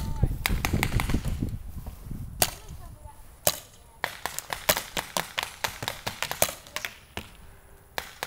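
Paintball markers firing: a few scattered single pops, then quick strings of shots, several a second, from about four seconds in.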